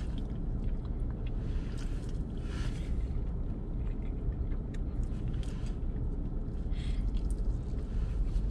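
Eating sounds: a fork clicking and scraping in a takeout food container, with chewing, over a steady low rumble.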